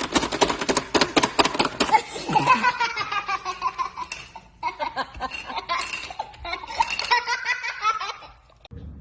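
A baby laughing hard in quick, high-pitched bursts of giggles, which stop abruptly near the end.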